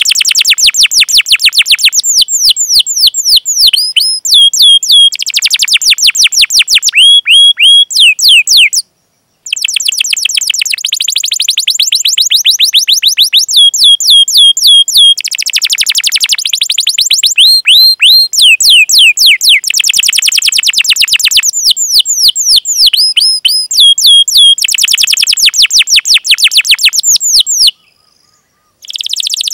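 Domestic canary singing: fast, dense rolls of rapidly repeated downward-sweeping chirps, alternating with runs of higher clipped notes. The song breaks off briefly about nine seconds in and again near the end.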